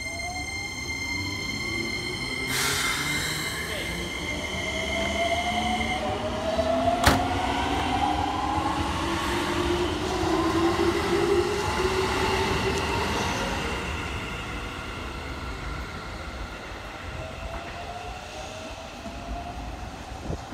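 Keikyu 1000 series stainless electric train pulling out, its inverter-driven traction motors whining in several tones that rise in pitch as it gathers speed, then fading as it moves off. A steady high tone stops about six seconds in, with a burst of hiss about two and a half seconds in and a sharp click about seven seconds in.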